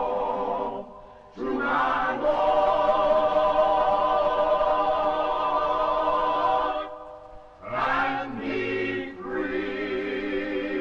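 An a cappella choir singing long held chords, with two short breaks between phrases: about a second in and about seven seconds in.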